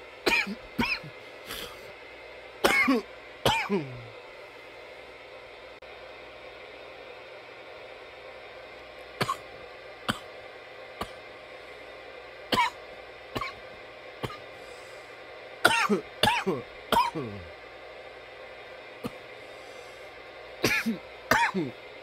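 A man coughing in repeated fits: clusters of two to four coughs separated by single coughs and short pauses.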